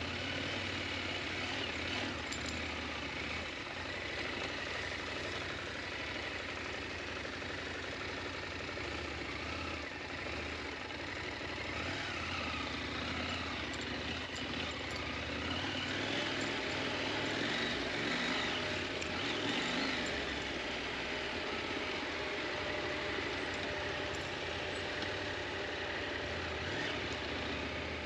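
KTM 890 Adventure motorcycle's parallel-twin engine running steadily, getting a little louder for a few seconds past the middle.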